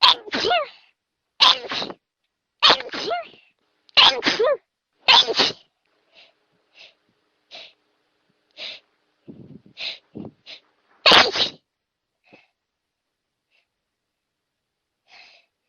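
A person sneezing in a fit: five loud sneezes about a second apart, each with a falling voiced 'choo', then a few short, quieter sounds, and one more loud sneeze about eleven seconds in.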